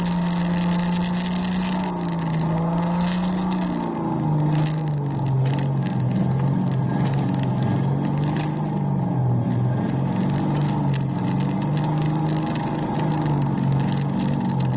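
Go-kart engine running, its pitch holding steady for a couple of seconds, then dropping and wavering up and down as the throttle is eased and pressed.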